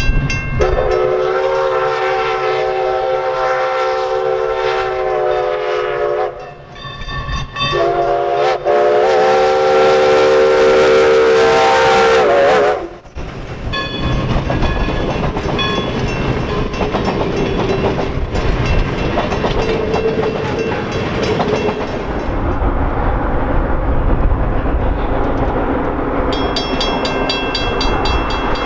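Steam locomotive whistle sounding two long blasts, a chord of several tones, the second wavering slightly as it ends. The locomotive then passes with hissing steam and its passenger cars rolling over the rails. Near the end, a grade-crossing bell rings with an even beat.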